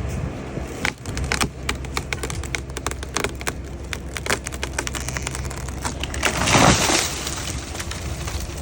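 A felled tree going over: a run of sharp wood cracks and splintering as the hinge breaks, then a loud crash as the tree hits the ground about six and a half seconds in, with an engine idling low underneath.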